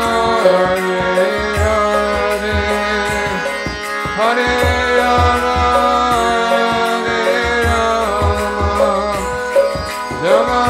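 Kirtan music: sustained held tones over a steady drum beat, with regular cymbal ticks and gliding melodic lines.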